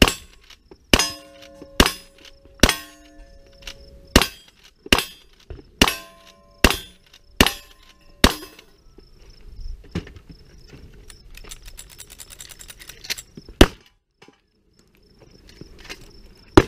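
Ten rifle shots at a quick, even pace, most less than a second apart, several followed by the ring of a struck steel target. After a pause of about five seconds comes one more loud shot, and a short crack at the very end.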